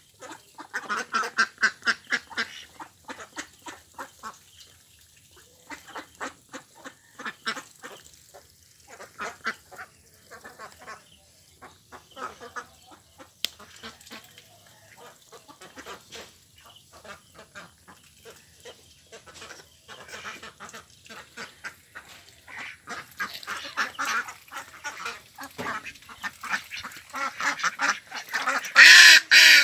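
Flock of domestic ducks quacking, many short calls overlapping, growing louder and denser near the end.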